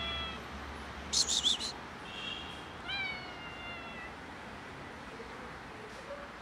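Tabby stray cat meowing: one meow trailing off at the start and another about three seconds in, with a short high call between them. A brief burst of rustling noise, the loudest sound, comes about a second in.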